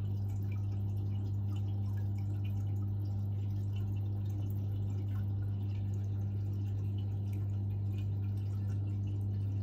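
Steady low electrical hum, with faint dripping water.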